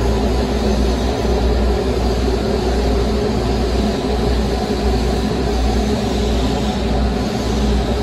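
Steady drone of running workshop machinery: a low hum with a few fixed tones that does not change.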